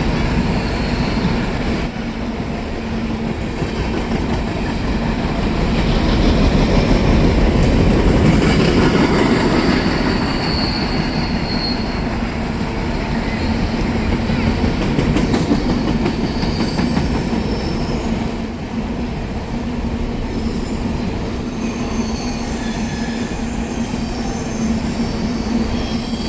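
Empty coal hopper cars of a BNSF freight train rolling past at close range, a steady loud rumble and clatter of wheels on rail. High-pitched wheel squeal sets in around the middle and keeps up to the end.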